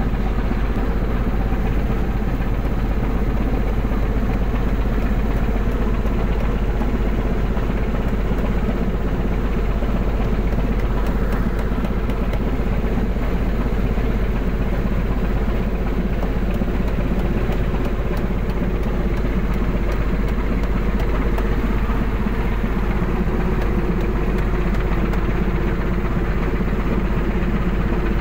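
Steady running drone of a longline fishing vessel's engine and deck machinery, a constant low hum that does not change.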